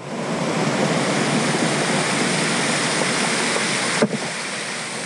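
Surf breaking and washing over a shore of rounded boulders, a steady rush of water. A brief knock about four seconds in, after which the rush is slightly quieter.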